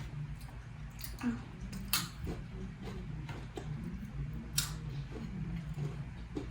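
Crunchy Goldfish crackers being chewed close to the microphone: scattered sharp crunches and clicks, a few louder ones about one, two and four and a half seconds in, over a low steady hum.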